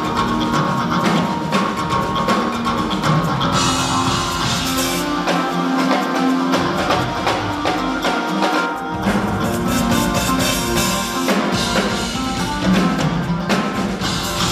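Live rock drum solo on a full drum kit: fast, dense strokes across drums and cymbals over the bass drum, with the bass drum dropping out briefly a few times.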